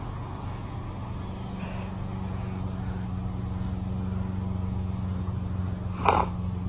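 A steady low machine hum, with one brief sharp noise about six seconds in.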